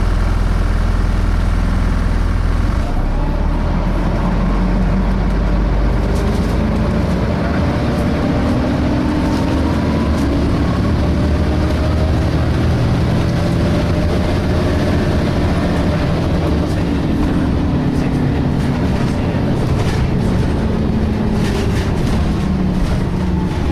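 Inside a DAF SB220 single-decker bus with a Voith automatic gearbox: the diesel idles with a low hum, then about three seconds in the bus moves off, with whines that rise and fall slowly in pitch as it speeds up and eases off. Under this runs the cooling fan's vacuum-cleaner-like hoovering.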